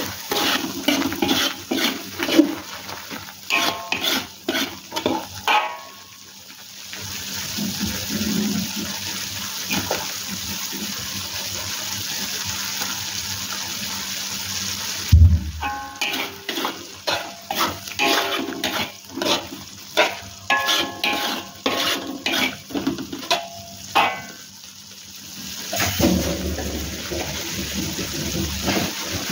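A metal spatula scrapes and clanks against a wok as it stirs chili paste frying in oil, in two long runs of quick strokes. Between and after the runs the paste sizzles with a steady hiss, and there is a single low thump about halfway through.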